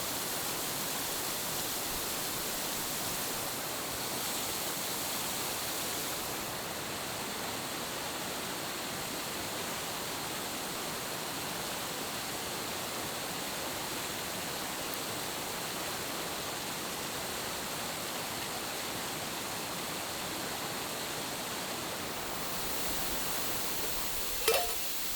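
Steady rushing of a waterfall close by, an even wash of falling water. A brief short sound stands out just before the end.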